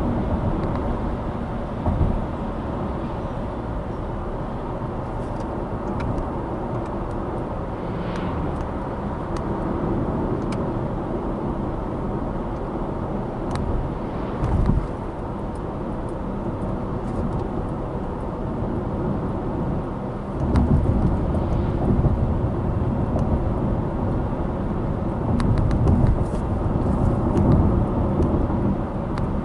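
Subaru Impreza Sport 1.6i-L driving: a steady low rumble of road and engine noise, with a couple of brief bumps, getting rougher and louder about two-thirds of the way through.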